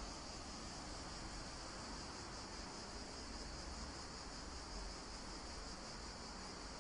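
Insects chirring steadily in a continuous high-pitched drone, with a faint low rumble underneath.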